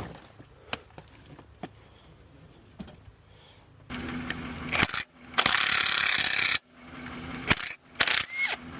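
Mechanical clicking and rattling of hand tools on a dirt bike: faint scattered clicks at first, then a loud harsh rasp lasting about a second past the middle, and a few sharp clicks near the end.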